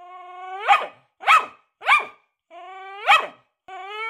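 Staffordshire bull terrier barking excitedly: four sharp barks, the first and last each preceded by a long drawn-out whine that rises in pitch into the bark, and another whine starting near the end.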